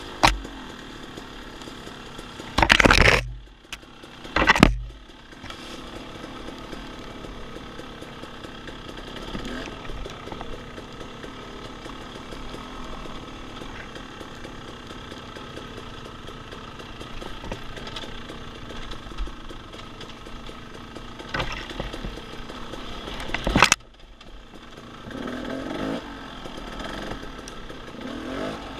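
Off-road dirt bike engine running under way, with loud surges about three and four and a half seconds in and another near the end of a long stretch that cuts off suddenly, then picks up again.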